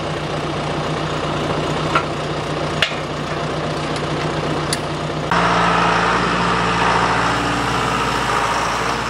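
A John Deere utility tractor's diesel engine running steadily at idle, with a few light clicks. About five seconds in it becomes louder as the tractor is under way pulling a disc harrow.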